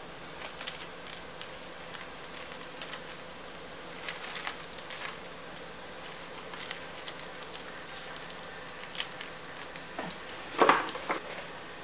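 Plastic cling film crinkling and crackling in scattered short spells as it is stretched and pressed over a silicone soap mould, with a louder knock and crackle near the end, over a steady hiss.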